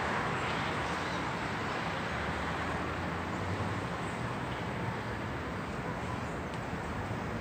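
City street traffic noise: a steady hiss of tyres and engines from vehicles on the avenue, with no single sharp event standing out.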